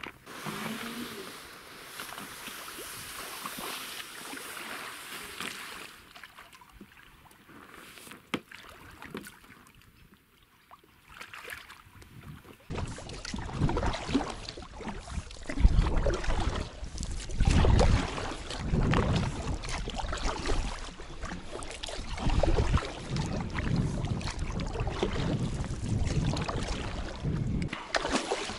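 An inflatable PVC kayak being paddled on a river: paddle strokes and water washing against the hull, with wind rumbling on the boat-mounted microphone in uneven surges. This starts about 13 seconds in, after a quieter stretch of faint rustling while the kayak is handled on the shore.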